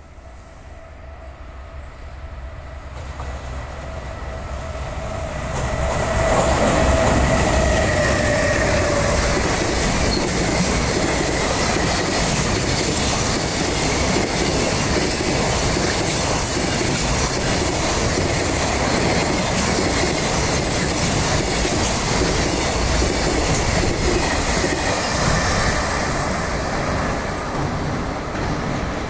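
An EH500 electric freight locomotive approaching and passing at speed, then a long container freight train rushing by with wheels clattering over the rail joints and a high, steady wheel squeal. The sound swells over the first six seconds, with a tone that drops in pitch as the locomotive goes by. The sound eases slightly near the end as the last wagons pass.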